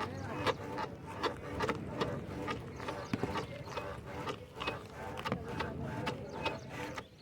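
Front suspension of an Ola S1X electric scooter creaking and squeaking with a whistle-like squeal, several short squeaks a second as it is pushed down and released repeatedly. The owner puts the noise down to wear in the suspension.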